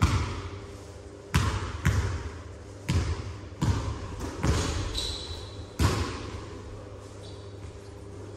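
A basketball bouncing on a hard gym floor: about seven irregular thuds, each with a short echo off the hall walls, before it falls quieter about six seconds in.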